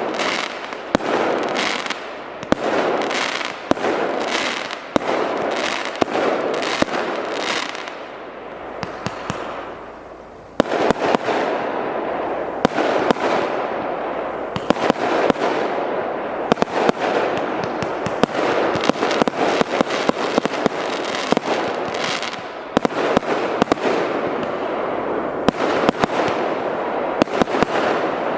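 A 200-shot fireworks cake firing shot after shot in rapid succession, sharp launch and burst reports over a continuous crackle. It thins out about a third of the way through, then comes back in full all at once.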